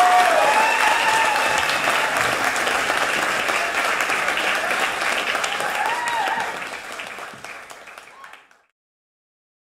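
Audience applauding, with voices calling out over the clapping. The applause fades out near the end and gives way to silence.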